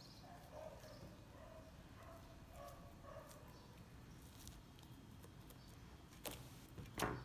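Sticky homemade slime being worked and pulled off fingers, mostly faint, with two sharp sticky clicks near the end.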